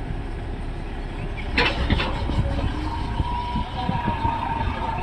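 Backhoe loader engine running with a steady low rumble, a sharp clatter about a second and a half in, and a steady whine from about three seconds on.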